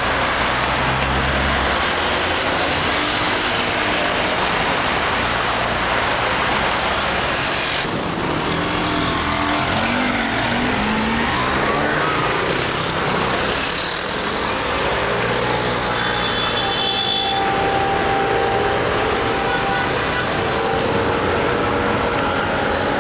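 City street traffic: cars passing and engines rising and falling in pitch as they pull away. A brief high tone sounds about two-thirds of the way through.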